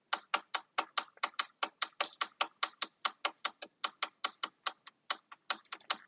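Small tactile push-button on a BFT Kustos gate control board clicked over and over in a rapid, even run, about five clicks a second, as the programming menu is scrolled through.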